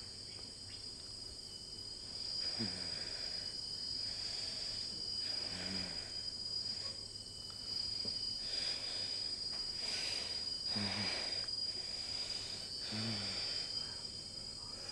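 Steady high-pitched chirring like crickets, with about five heavy, breathy exhalations from a person every two to three seconds, each carrying a brief low groan.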